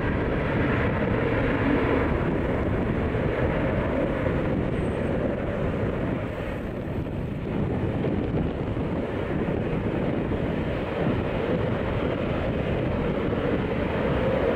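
Tupolev Tu-154M's three Soloviev D-30KU-154 turbofan engines at takeoff thrust, a steady heavy jet noise through the takeoff roll, lift-off and climb-out.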